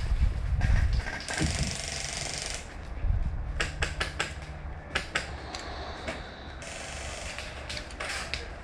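Airsoft guns firing on an outdoor field: uneven runs of sharp clicking shots in two clusters, after a low wind rumble on the microphone and a short hiss.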